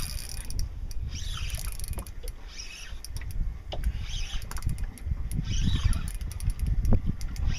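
Spinning reel being cranked in short bursts while a hooked bonito is played, its whir rising and falling about every second or so, with scattered clicks; low wind rumble on the microphone underneath.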